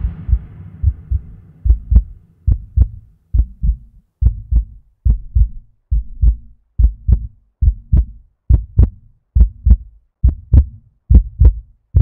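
Heartbeat sound effect: paired low thumps (lub-dub) at about seventy beats a minute, growing louder over the first few seconds. At the start, the tail of a music chord dies away.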